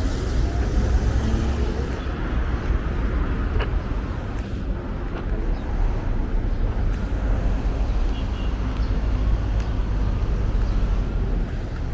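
Street traffic: a steady rumble of passing cars.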